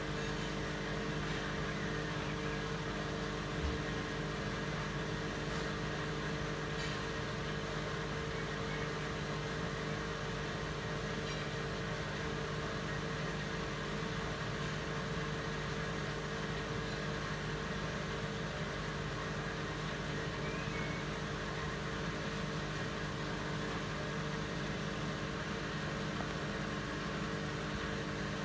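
Bosch WAT28370GB front-loading washing machine spinning its drum at a steady speed during an intermediate spin between rinses, wringing water from the load. The motor and drum give a steady hum with a few held tones.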